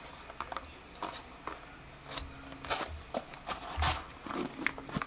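Small cardboard box being opened by hand: the tuck-in lid pulled free of its slot and lifted, a run of short cardboard scrapes, taps and rustles, loudest about three and four seconds in.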